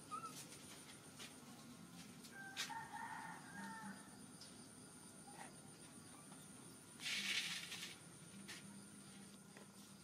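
A faint pitched animal call lasting about a second and a half, a couple of seconds in. About seven seconds in comes a short, louder burst of hissing noise. A faint steady high tone runs underneath.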